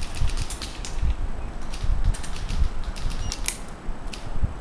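Airsoft guns firing, heard as irregular clusters of sharp clicks and snaps, over a low uneven rumble of wind and handling on the microphone.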